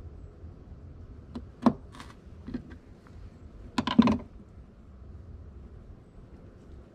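A few sharp clicks and knocks of a knife and hands against a hard truck tailgate as a squirrel is being skinned, the loudest a cluster of knocks about four seconds in as the knife is laid down.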